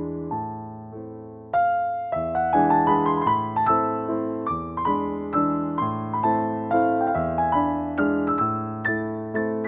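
Background piano music: a gentle melody of struck notes, softer at first, then fuller and louder from about a second and a half in.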